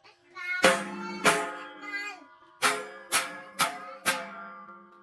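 Background music of plucked string notes, each struck sharply and ringing out: two notes, a short pause, then four more in a quick run.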